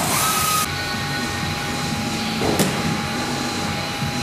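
Truck repair shop background noise: a steady machinery hum with fixed whining tones, a short hiss at the start, and a single clunk about two and a half seconds in.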